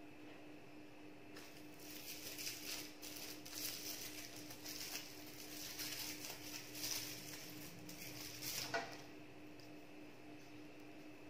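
Crinkling plastic film as individually wrapped crab sticks are handled and unwrapped by hand: a run of crackly rustles starting about a second and a half in and stopping with a sharp click about nine seconds in.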